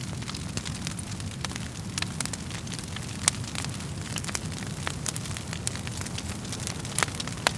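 Wood fire crackling: a steady low rumble of flames with frequent sharp pops and snaps at irregular intervals, the loudest about 3 seconds in and twice near the end.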